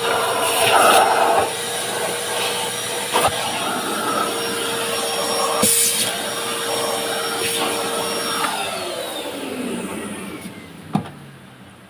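Vacuum cleaner running with a steady whine and rushing air, with a few sharp knocks as the nozzle bumps about. About eight seconds in it is switched off, and the motor whine falls in pitch as it spins down. A single loud knock comes near the end.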